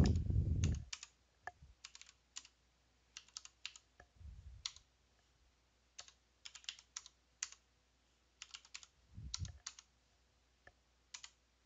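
Computer keyboard being typed on: faint single keystrokes and short runs of keys with pauses between them, plus a couple of soft low thumps.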